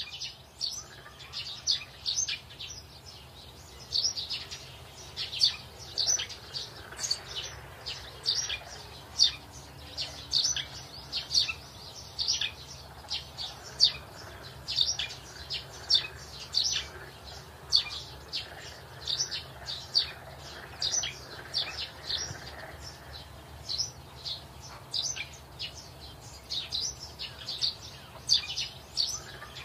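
Small birds chirping continuously: many short, high chirps in quick, irregular runs, over a steady low hum.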